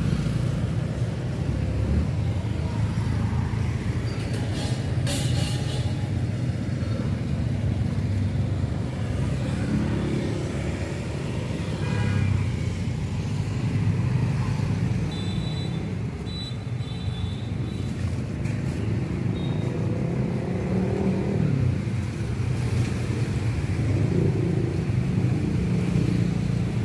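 Steady low rumble of street traffic, vehicles passing on the road beside the stall.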